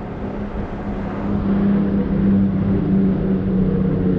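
Baitcasting reel whirring steadily as line is reeled in, a pitched hum that grows louder after about a second.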